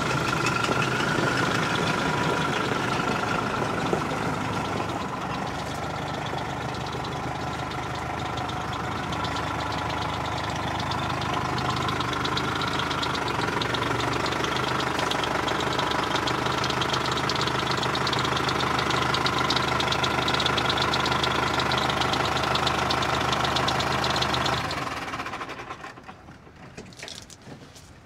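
Fendt Xylon tractor's four-cylinder MWM diesel engine running steadily as the tractor manoeuvres. The sound drops away sharply about 25 seconds in.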